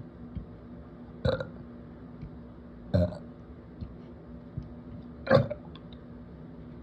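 A person burping three times, short separate belches a second and a half to two seconds apart, the last one the loudest, brought up by drinking carbonated sparkling water.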